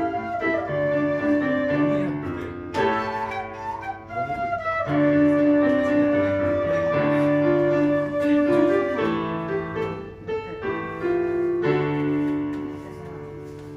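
Quena and piano duet: the quena plays the melody over piano chords, with one long held note in the middle. Near the end the quena stops and a last piano chord rings out and fades.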